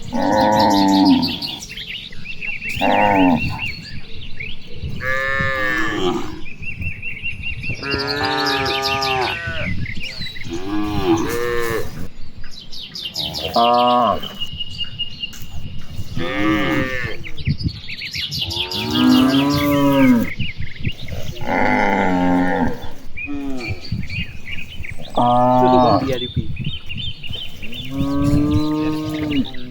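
A herd of cattle mooing: about eleven long calls, one every two to three seconds at different pitches. Birds chirp between the calls.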